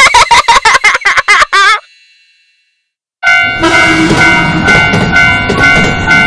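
A burst of rapid warbling, horn-like toots, cut off at once, then after a short silence a cartoon railroad-crossing bell starts its alternating "kan-kan" ring, about three strokes a second, over a music bed.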